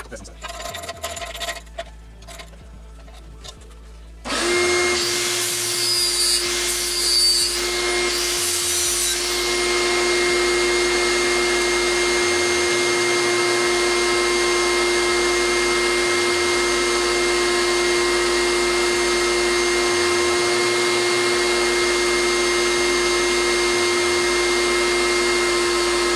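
Handheld knocks and clatter, then about four seconds in an 8-amp 4-1/2 in. angle grinder starts and runs at a steady high whine. About five to nine seconds in there is a rougher, rasping noise over the whine, the disc grinding the steel edge of a lawn mower blade.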